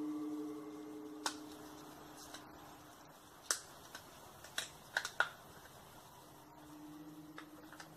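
A low, steady trumpet-like drone from the sky, a single pitched tone with a few overtones, that fades away after about a second and swells back in near the end. Several sharp clicks come in the middle.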